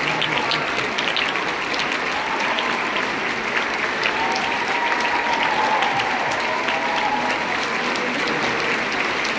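Audience and stage company applauding steadily, a dense crackle of many hands clapping at an even level.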